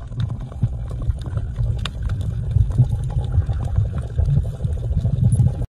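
Underwater ambience: an uneven low rumble of moving water with a few faint clicks.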